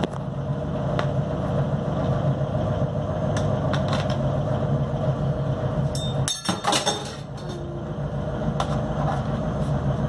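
Steady low hum of a running motor, with scattered light clicks and a short clatter of knocks about six seconds in.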